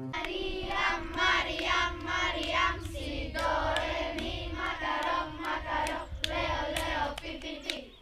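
A group of children chanting a game rhyme together in unison, with sharp hand claps and slaps, most of them in the last couple of seconds.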